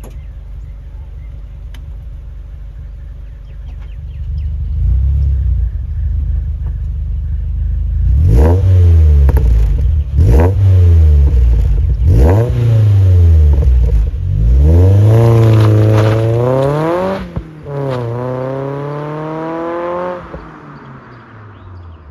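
Mazda MX-5 NC1's inline-four engine and exhaust idling, then revved in three or four quick throttle blips, each rising and dropping straight back, followed by a longer rev that is held for a couple of seconds and then falls back to idle.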